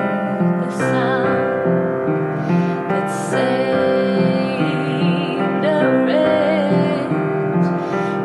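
Woman singing with piano accompaniment, holding long notes with vibrato.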